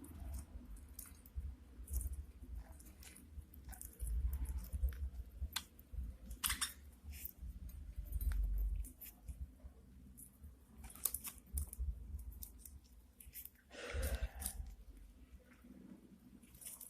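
Budgerigars cracking and husking seeds with their beaks: irregular small sharp clicks over a low rumble, with a louder rustling burst about fourteen seconds in.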